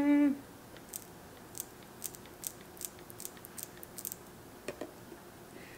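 Plastic squeeze bottle of ranch dressing squeezed into a glass bowl: a string of faint, short clicks and spurts as the thick dressing comes out, from about a second in until near the end.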